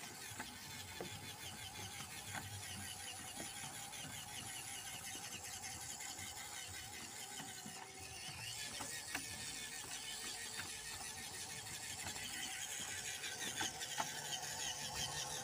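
WPL D12 RC mini truck's small electric motor and geared drivetrain whirring steadily as it drives over a wet deck, with scattered light clicks and ticks, the sharpest near the end.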